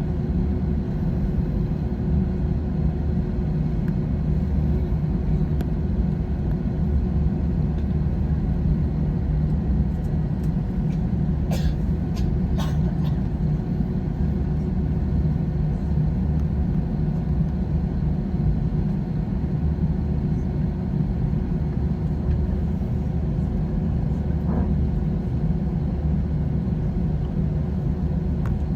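Cabin noise inside an Airbus A321 airliner: a steady rumble of the jet engines and airflow with a low, even hum. Two short clicks about twelve seconds in.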